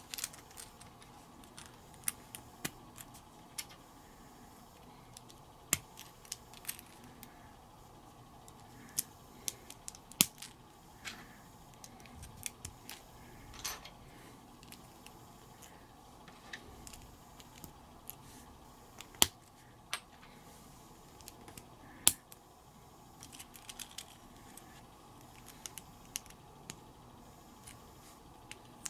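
Small plastic building bricks and wheel parts clicking and snapping together by hand: scattered sharp clicks with a few louder snaps, about ten, nineteen and twenty-two seconds in, over a faint steady hum.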